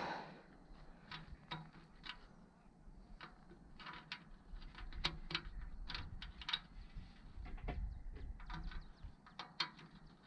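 Scattered light clicks and knocks at irregular intervals, the sound of equipment or gear being handled.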